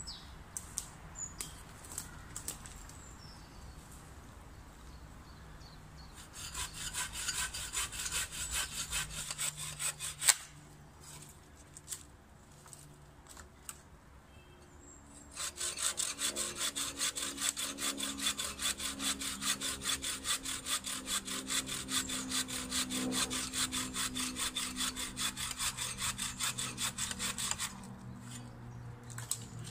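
Small bow saw cutting through a dead fallen branch with steady back-and-forth strokes, in two spells: a short one, then a longer one after a pause. A single sharp crack ends the first spell, about ten seconds in.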